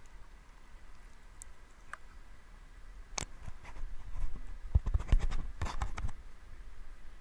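Handling noise on an action camera: scratches, clicks and knocks of fingers on the housing, sparse at first and then a quick cluster of knocks a few seconds in, over a low rumble.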